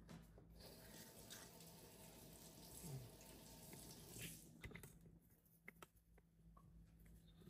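Faint hiss of running water that stops about four and a half seconds in, followed by a few light clicks.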